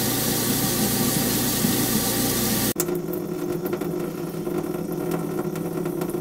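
Kitchen garbage disposal running with the tap on: a steady motor hum under the rush of running water. It cuts off abruptly about three seconds in and gives way to water dripping, many quick small drips over a low steady hum.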